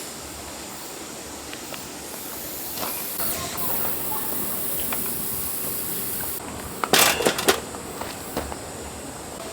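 A steady high hiss, like a spray, for about four seconds that cuts off suddenly, followed by a brief cluster of clicks and knocks.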